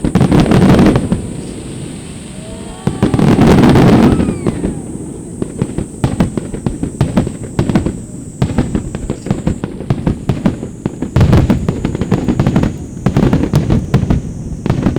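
Aerial fireworks going off: two heavy booms with long rumbling tails in the first few seconds, then a rapid crackling of many small bursts, with more heavy booms near the end.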